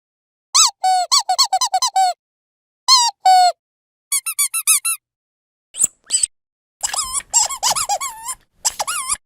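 Rubber dog squeaky toy being squeezed, giving short pitched squeaks that bend up and down, in quick runs of several squeaks with pauses between, the busiest flurry near the end.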